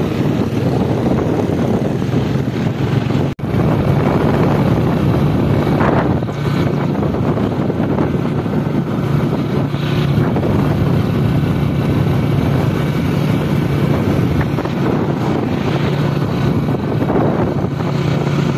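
A vehicle driving on a rough road: a steady engine hum under road and wind noise, with wind on the microphone. The sound cuts out for a split second about three seconds in.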